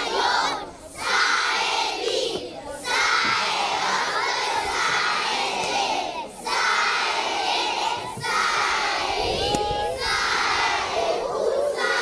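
Many children shouting together in short phrases, each lasting a second or two, with brief pauses between them.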